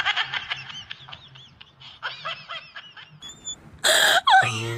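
Laughter in quick short giggling bursts, fading over the first three seconds. About three seconds in comes a brief high tone, and about a second later a short loud burst.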